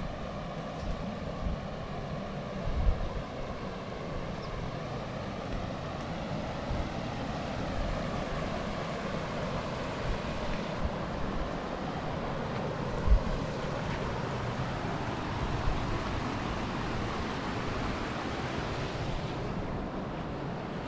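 Pedernales River water running with a steady rushing sound. Two low thumps come about three seconds in and again about thirteen seconds in.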